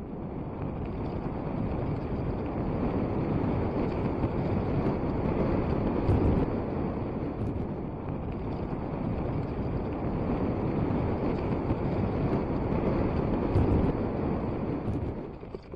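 Wind buffeting the microphone of a camera riding along on a mountain bike: a steady, heavy rushing noise, strongest in the low end, that swells and dips a little as the rider moves. It comes in at the start and drops away near the end.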